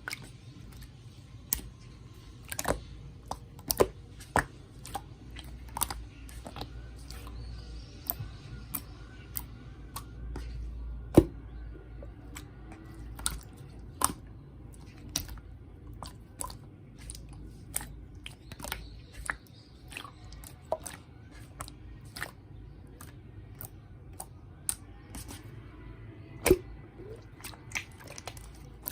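Slime being squeezed and pressed by hand, giving irregular sharp pops and clicks, several a second at times, with a louder pop about eleven seconds in.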